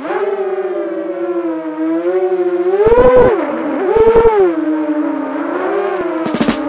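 Diatone Grasshopper 160 quadcopter's four DYS 1804 brushless motors and 4045 propellers whining in flight, the pitch rising and falling with the throttle, highest about three and four seconds in. Music begins near the end.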